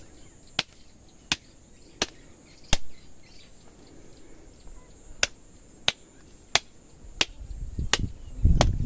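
Machete chopping through a hanging goat carcass's ribs: sharp, regular strikes about every 0.7 seconds, five, a short pause, then six more. A low rumble builds near the end.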